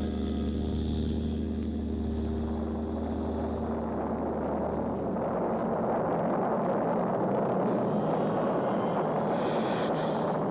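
Electronic synthesizer sound effect: a steady, engine-like low drone of several held tones fades about four seconds in, as a swelling rushing rumble takes over, the sound of an explosion.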